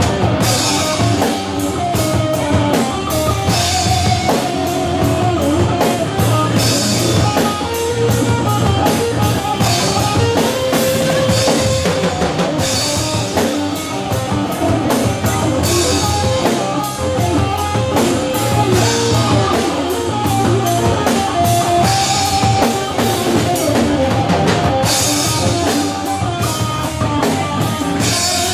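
Live rock band playing: electric guitar, bass guitar and a drum kit keeping a steady beat, with cymbal crashes about every three seconds.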